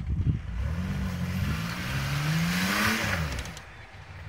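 Off-road 4x4 engine revving up under load and then easing off, as a tow strap pulls a stuck truck through deep snow. A hiss rises with it near the peak.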